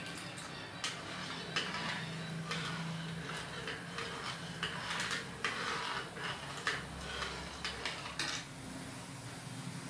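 Cumin seeds sizzling in hot oil in a small tempering pan, with irregular pops and crackles. The seeds are spluttering, the sign that the tadka is ready.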